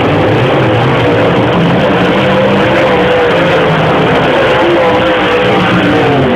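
Dirt-track race cars' engines running hard around the oval, their pitch wavering up and down as they rev through the turns. Loud throughout.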